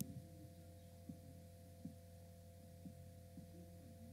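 Near silence: a steady low hum with a few faint, brief low sounds.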